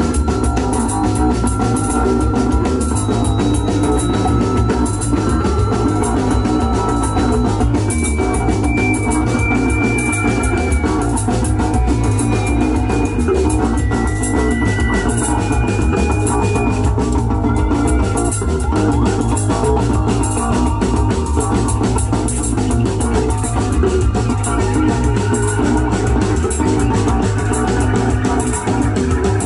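Rock band playing live: electric guitars, drum kit and an organ-like keyboard over a steady beat, with a few held high notes in the middle.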